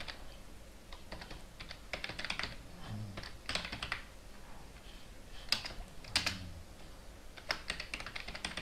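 Typing on a computer keyboard: keystrokes come in short, irregular clusters with brief pauses between them.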